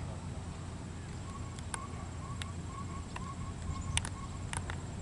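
Horse trotting on arena sand, its hoofbeats coming through as scattered sharp ticks that grow more frequent near the end as it comes close, over a steady low rumble.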